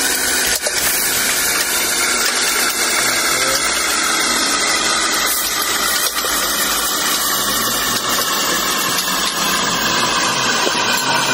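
Food frying in a pan on a gas stove: a loud, steady sizzle, with a few light clicks of a metal spatula against the pan.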